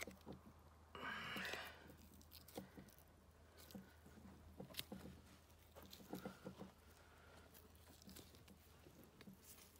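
Near silence, with faint, scattered soft clicks and rustles of a knife slicing along a deer carcass's spine to free the backstrap.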